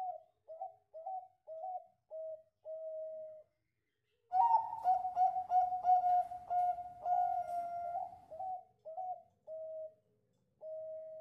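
Zebra dove (perkutut) singing its cooing song: a string of short coos at a steady pitch, each run closing on a longer drawn-out note, with a louder, fuller stretch of cooing in the middle.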